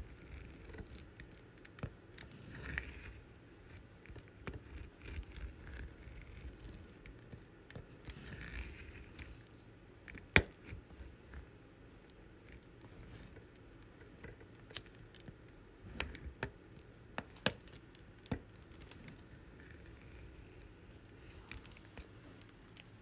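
Diamond-painting drill pen picking up round drills and tapping them onto the sticky canvas: light scattered clicks and soft scraping, with a few sharper clicks, the loudest about halfway through.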